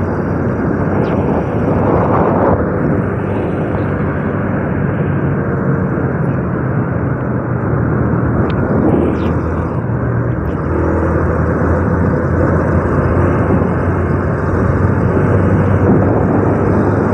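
Honda Revo 110 underbone motorcycle's small single-cylinder four-stroke engine running steadily while riding, largely covered by a loud, even rush of wind on a chest-mounted phone's microphone.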